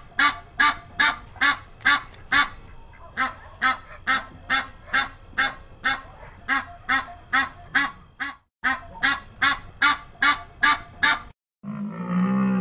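A large water bird calling in a steady series of short honks, about two a second, with a brief pause about eight seconds in. Near the end the honks stop, and a deeper, drawn-out animal call begins.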